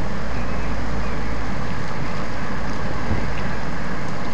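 Hurricane winds of about 40 to 45 mph blowing steadily, with a low rumble of wind buffeting the microphone.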